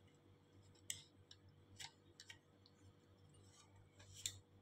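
Near silence broken by about five faint, sharp clicks and taps of an aluminium heatsink being handled and set down on a circuit board, the loudest near the end.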